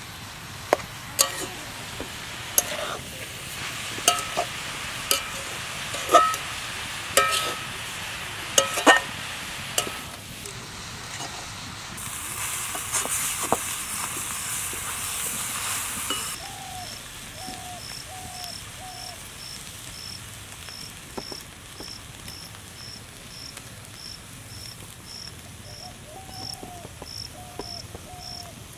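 A metal spatula scraping and knocking against an iron kadhai as grated coconut is stirred, each knock with a short metallic ring. This is followed by a few seconds of hissing. Later an insect chirps steadily, about two chirps a second, with a few runs of lower short chirps.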